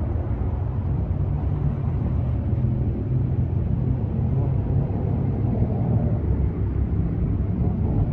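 Steady low rumble of idling vehicle engines and street traffic, mixed with gusting wind.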